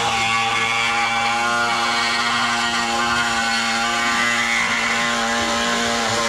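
Power cutting tool running at a steady pitch, cutting through the rusted sheet metal of a truck's rocker panel.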